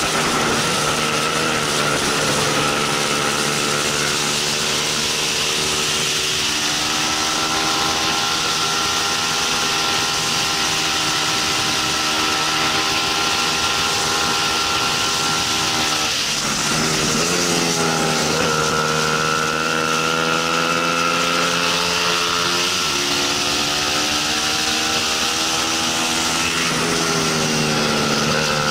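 Bajaj Pulsar 200 NS single-cylinder engine running hard at high revs, heard from the bike itself, with wind rushing past. Its pitch dips and climbs again several times, most clearly about 16 seconds in and near the end.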